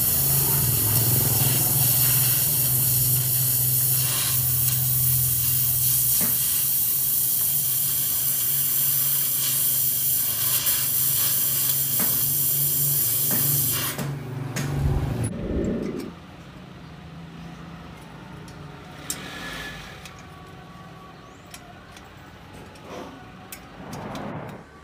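Electric stick-welding arc crackling and hissing steadily over a low hum as the steel exhaust pipe is welded to the muffler. It stops about 14 seconds in. A couple of knocks follow, then a much quieter stretch with a few faint clicks.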